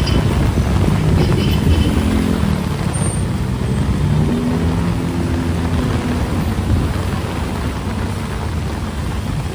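A motor vehicle's engine running close by, its low hum shifting in pitch, over the steady hiss of heavy rain.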